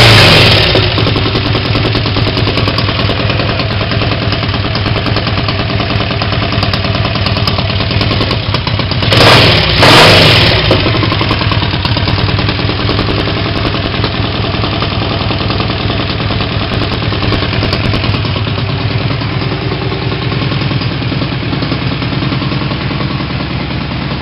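Triumph Tigress 250 scooter's parallel-twin four-stroke engine running just after starting from a full rebuild: revving as it opens, revved twice about nine to ten seconds in, and otherwise idling steadily. The right-hand exhaust pipe has blown free of the exhaust junction, which adds some exhaust noise, and no valve clatter is heard.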